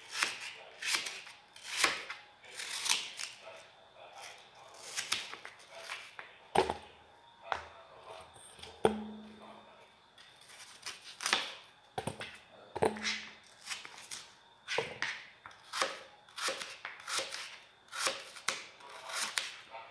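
Kitchen knife slicing through peeled green apple and knocking on a plastic cutting board, an irregular series of crisp cuts about one or two a second.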